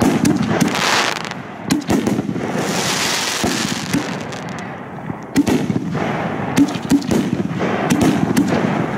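Fireworks crackling and popping: a dense run of sharp pops over a steady hiss, with louder hissing surges about a second in and again around three seconds in.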